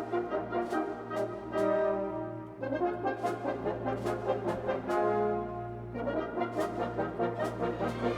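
Background music: held brass-like chords that change every second or two, over a regular percussion beat.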